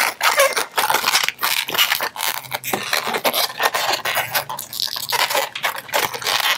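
Inflated white 160 latex modelling balloon rubbing and scraping against itself and the fingers as it is twisted into small bubbles by hand, in a quick, irregular run of short scrapes.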